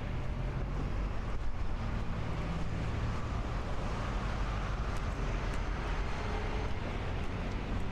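Steady street traffic noise: a continuous low rumble of cars driving on a wide city road.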